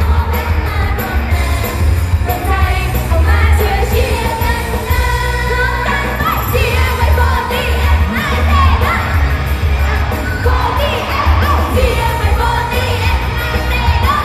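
Thai idol-pop song performed live on stage and heard loud through the PA: a female voice singing into a microphone over a heavy, pulsing bass beat.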